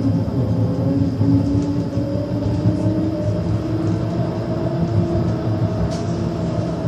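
Electric tram running, heard from inside the passenger cabin: a steady rumble with a motor hum that rises slowly in pitch over the first few seconds as the tram gathers speed, then holds.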